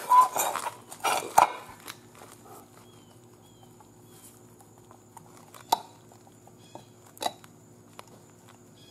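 Old water pump off a 4.0 straight-six, its loose shaft bearing rattling and clicking as it is spun by hand; the play in the bearing is what let the weep-hole seal leak. The rattle dies away after about a second and a half, followed by two single sharp clicks.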